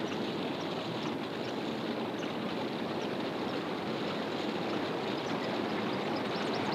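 Steady rush of a flowing river: an even wash of water noise.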